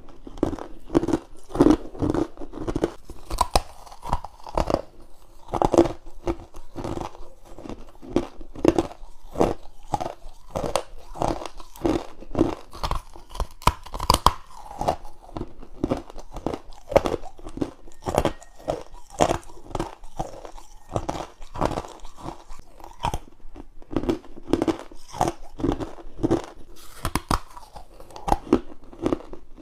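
Close-miked bites into hard frozen frost and ice cubes, a rapid string of crisp crunches and cracks, several a second, with no pause.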